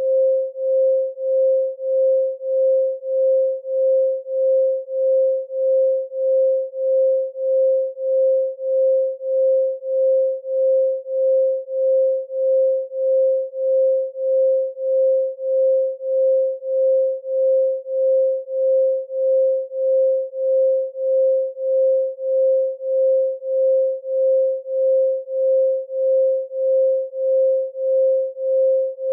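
Electronically generated 528 Hz pure sine tone, pulsing in loudness about twice a second.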